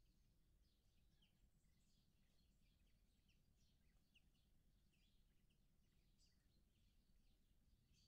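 Near silence, with faint, scattered short bird chirps over a low background rumble.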